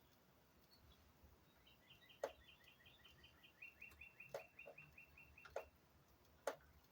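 A faint songbird singing: a quick run of repeated chirps, then a longer, steady run of slurred notes a little lower in pitch. A few sharp clicks sound over it, the loudest about two seconds in and again near the end.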